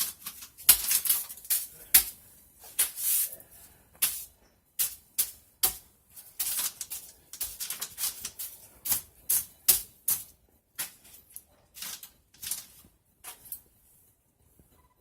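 Irregular sharp clicks and short scratching, crinkling bursts, coming in uneven clusters a few times a second and thinning out near the end. The uploader suspects a hidden mouse or rat, though nothing can be seen moving.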